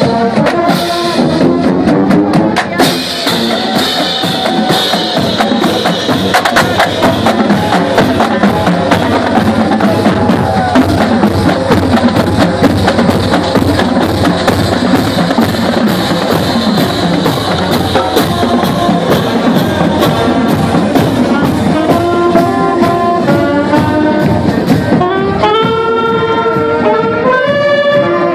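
Marching band playing: sousaphones, saxophones and other brass over a steady beat of drums and crashing cymbals. About 25 seconds in the drums and cymbals drop out and the horns carry the tune on their own.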